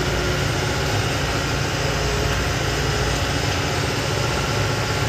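Truck engine running steadily on the move, heard from inside the cab as an even low drone.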